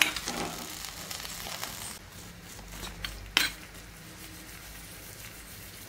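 Raw peanuts clattering into a small black pan on a gas stove as they are poured in for dry-roasting, fading out within a couple of seconds. About three seconds in come two sharp clicks, then only a faint steady hiss.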